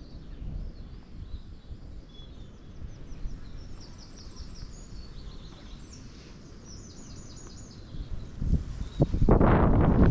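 Small songbirds singing, repeated short chirps and trills over a low rumble of outdoor noise. About a second before the end, a sudden loud rushing noise comes in and drowns the birds.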